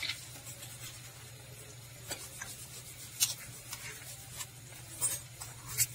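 Spoons scraping and clicking as a tofu batter is shaped into balls: a handful of short scrapes and ticks over a steady low hum.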